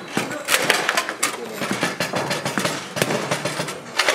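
Table football in play on a Bonzini table: sharp knocks and clacks as the ball is struck by the figures and hits the table's sides, with a quick run of hard hits in the first second or so and another near the end.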